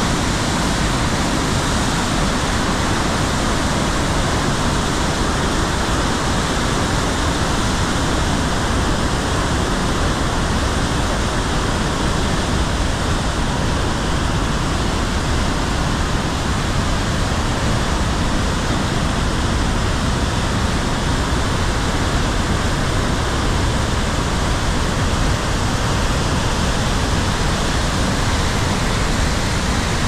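Waterfall and whitewater rapids rushing through a narrow rock gorge: a loud, steady rush of water.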